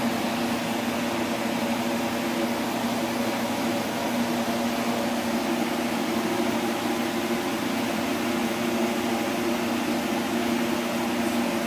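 A steady mechanical hum with several low droning tones over an even whirring noise, unchanging throughout.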